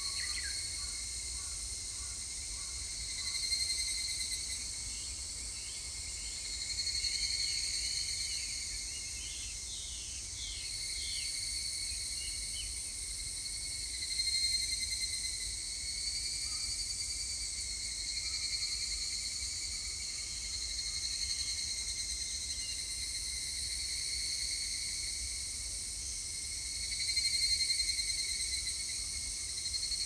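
A chorus of higurashi cicadas (Tanna japonensis) calling, a high ringing that swells and fades in waves every few seconds. There are a few short chirps about a third of the way in.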